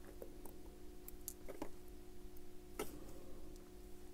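A few faint, light clicks of steel tweezers on a tiny watch screw and the brass Bulova 218 movement as a train-bridge screw is taken out and set down on the bench mat.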